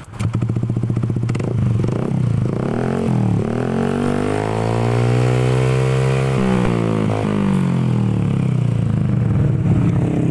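A Honda BeAT automatic scooter's 110 cc single-cylinder four-stroke engine running through an F2Racing Trioval M stainless slip-on silencer. The engine comes in loud about a quarter-second in, is revved up smoothly from about two seconds in, held high for a few seconds, then let back down to idle about seven seconds in.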